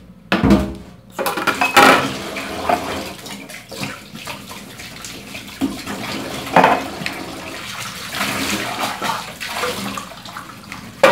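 Tap water running into a kitchen sink while dishes are washed by hand, with the odd knock and clatter of plates and utensils, a few louder ones standing out.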